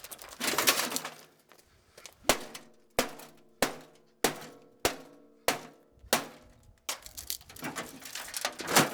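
Black & Decker BMO700 microwave being smashed: a crunching burst near the start, then a rapid run of hard strikes on its casing, about one every two-thirds of a second, each leaving a short metallic ring.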